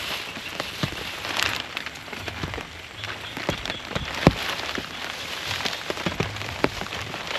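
Heavy rain falling steadily, a constant hiss scattered with irregular sharp drop hits, one louder drop about four seconds in.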